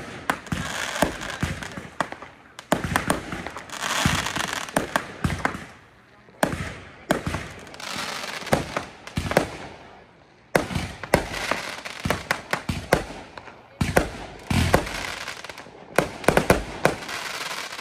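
Fireworks going off in rapid succession: many sharp bangs and crackling pops over a hiss. They come in several bursts with brief lulls between them.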